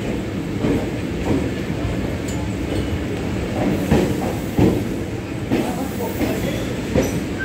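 Chennai suburban EMU (electric multiple unit) train running slowly through a station, a continuous low rumble with irregular wheel knocks, heard from the coach's doorway.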